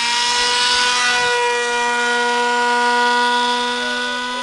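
Radio-controlled model airplane in flight, its motor and propeller giving a loud, steady, high-pitched drone.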